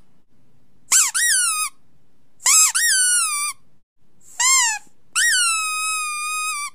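A dachshund puppy howling: four high yowls, each rising and then falling in pitch, the last one long and drawn out.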